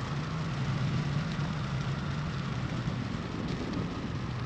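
Steady rush of wind over the microphone as a paramotor glides with its engine shut off, with a low, even drone underneath.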